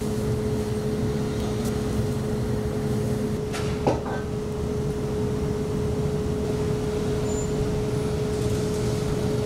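The cooking stove under a large wok of steaming soup, running with a steady hum and a held tone; part of the low hum drops away about three and a half seconds in. A single sharp clink sounds about four seconds in.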